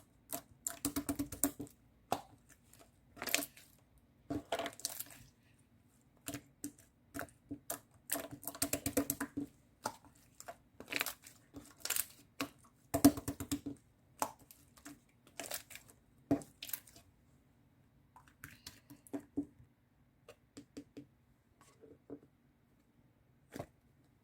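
Small objects being handled close up: irregular clicks, taps and short rustles in clusters, thinning out near the end.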